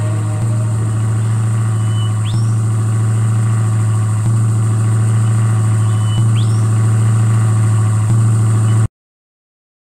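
Simulated car engine sound of a player-driven SUV in a real-time game-engine demo, running at a steady low pitch with its level stepping up slightly every couple of seconds. Two short rising chirps come about two and six seconds in, and the sound cuts off suddenly near the end.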